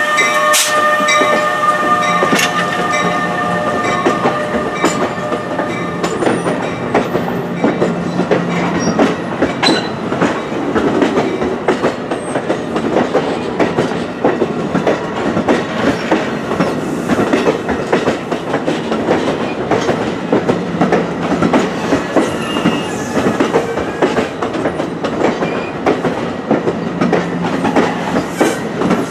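New Jersey Transit train, an ALP-46 electric locomotive with bi-level coaches, passing close by at speed. The wheels keep up a dense clickety-clack over the rail joints, and a set of steady tones fades out about six seconds in as the locomotive moves away.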